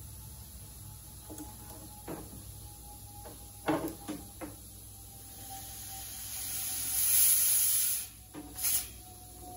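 A few handling knocks, then compressed air hissing as a shop air hose pressurises a toy steam engine for an air test. The main hiss builds over about two seconds, cuts off suddenly, and comes back briefly as a short burst near the end.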